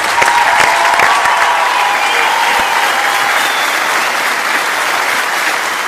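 Audience applauding, many hands clapping together, easing off slightly near the end.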